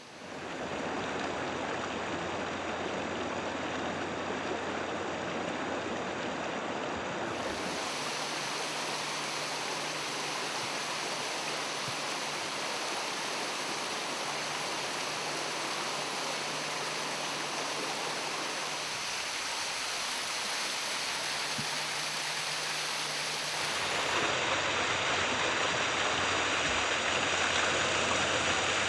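Small waterfall on a mountain creek, water cascading over rock ledges into a pool with a steady rush, stepping up louder near the end.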